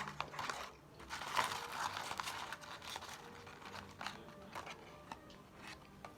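Close-up eating noises over a McDonald's fries and nuggets meal: crinkling and crackling, busiest in the first two or three seconds, then thinning to scattered light ticks.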